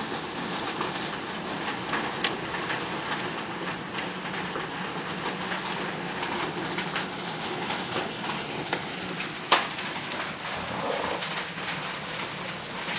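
Blizzard wind blowing steadily, with wind-driven snow hissing against the microphone and scattered small clicks. There is a sharp knock about nine and a half seconds in.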